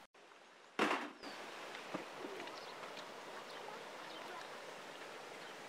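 Outdoor ambience: birds chirping and faint voices over a steady background hiss. A brief loud rush of noise comes about a second in.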